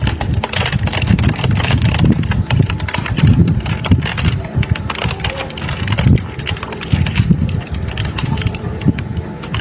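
Industrial twin-shaft shredder running under load as its hooked rotors chew up a plastic children's ride-on car, with dense irregular cracking and crunching of the breaking plastic over a low, steady machine rumble.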